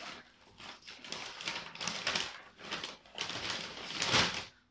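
Hands rummaging through bagged and packaged items, a run of rustling, crinkling and clicking in bursts, loudest near the end.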